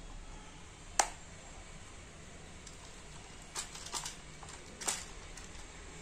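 Plastic clicks from handling a toy's wired remote control as its battery cover is closed: one sharp snap about a second in, then a few lighter clicks and taps near the end.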